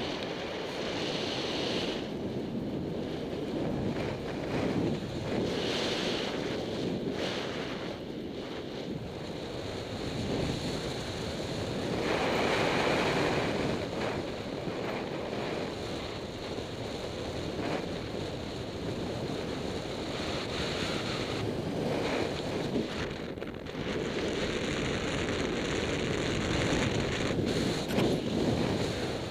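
Wind rushing over the microphone in flight under a paragliding miniwing, a steady roar of airflow that swells and eases with the changing airspeed.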